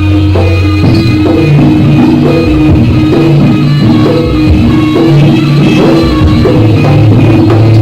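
Live jaranan ensemble music, a steady rhythm of drums under repeated pitched notes.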